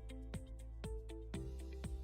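Background music only: a soft electronic track with held notes and a regular beat about twice a second.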